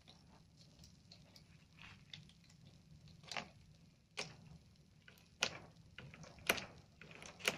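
Faint, irregular clicks and crackles of a thin plastic smart-film sheet being flexed and handled, with a few sharper snaps in the second half.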